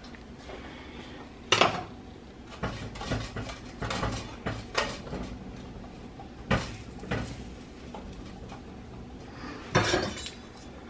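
Kitchen utensils and dishes clinking and knocking as they are handled at the stove: scattered sharp knocks every second or so, the loudest about a second and a half in and again near the end.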